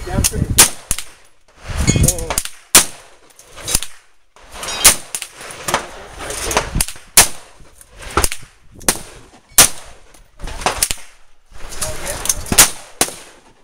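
Semi-automatic AR-15 rifle fire from more than one shooter on a firing line: about twenty single, sharp shots at irregular intervals, roughly half a second to a second apart, the closest shots loudest.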